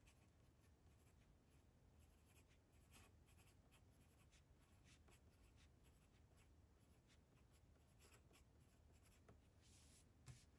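Pencil scratching faintly on watercolour paper in many short strokes, writing out a name in small script. A soft knock comes near the end.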